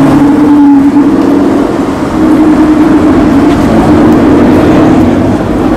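An Aston Martin convertible's engine running at low revs as the car pulls slowly past and away, a steady drone that dips briefly about two seconds in.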